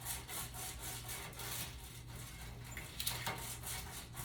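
Quick, rhythmic rubbing in an oiled frying pan, about four strokes a second, as the oil is worked around the pan's surface.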